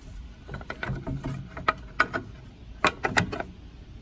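Black iron hook-and-eye latch on a wooden hutch door being fastened: a series of sharp metal clicks and taps as the hook swings and drops into its eye, the loudest about three seconds in.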